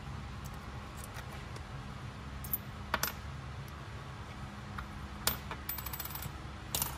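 A few old American coins clinking against each other in gloved hands: a handful of light metallic clicks, the loudest about three seconds in, with a brief high ring from the coins around six seconds in.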